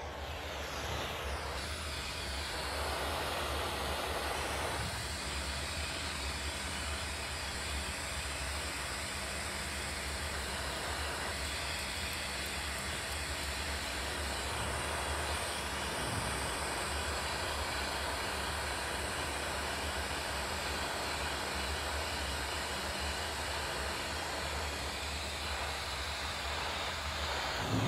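Steady rush of glassblowing oxy-gas torch flames heating a glass joint on a glass lathe while the joint is fire cut, with a low steady hum underneath.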